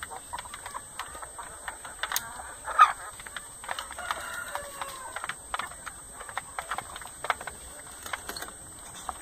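Chickens in a pen clucking and calling, with many short clicks and scratches throughout; one louder call about three seconds in.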